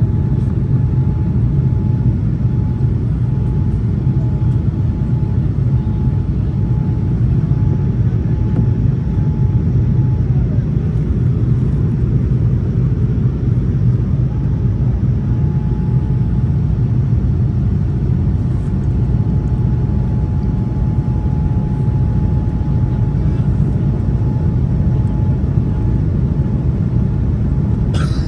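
Steady cabin noise inside a Boeing 787-9 airliner in flight: a low, even rumble of engines and airflow, with a faint high whine that drops out for a few seconds midway and comes back. A sharp click near the end.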